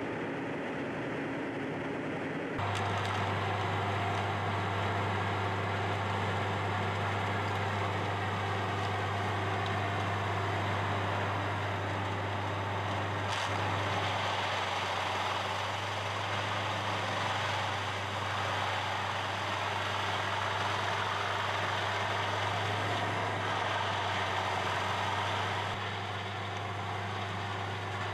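Large whole-tree chipper's engine running steadily as a loader feeds bamboo stems into it for chipping: a steady low drone with a dense hiss over it. It gets louder about two and a half seconds in and eases slightly near the end.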